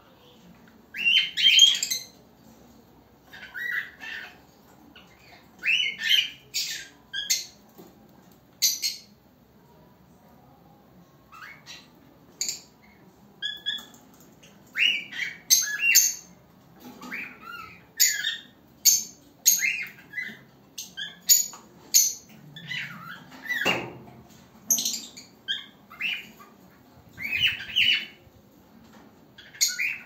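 A cockatiel's first singing: bursts of short chirps, whistles and squawks, with brief pauses between phrases and one louder falling call about two-thirds of the way through.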